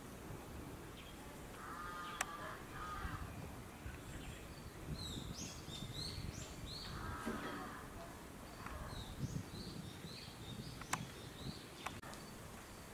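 Birds calling outdoors: harsh crow-like caws a couple of times and a run of short high chirps from small birds, over a steady low background rumble, with a few sharp knocks.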